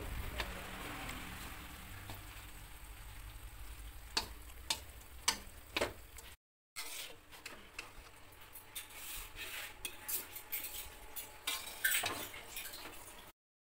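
Yard-long beans, pork belly and garlic stir-frying in a metal wok: a light sizzle with scattered clicks and taps of chopsticks and then a metal spatula against the pan, with a short break in the sound about halfway.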